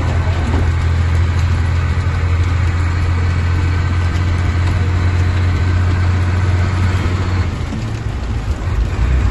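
Truck engine running under way, heard from inside the cab as a steady low drone over a constant hiss of heavy rain on the wet road and windshield. The drone eases about seven and a half seconds in and picks up again near the end.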